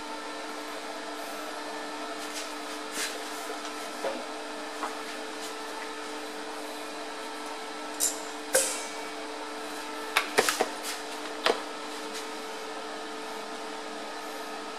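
Steady hum of running workshop equipment, with a few light ticks early on and louder sharp clicks and knocks around eight to eleven and a half seconds in.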